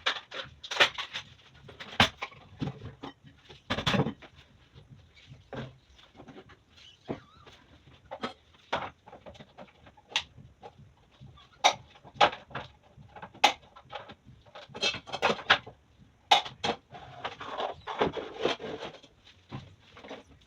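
Irregular clicks, knocks and clatter of objects being handled and set down while a kitchen is cleaned, with short busier stretches of rubbing or rattling.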